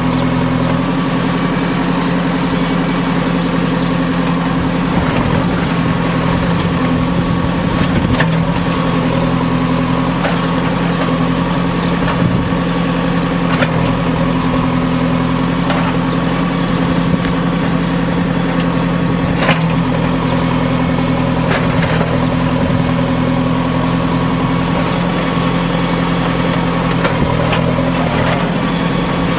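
A JCB backhoe loader's diesel engine runs steadily while the backhoe digs into an earth and stone bank. A few sharp knocks come through as the bucket strikes stones.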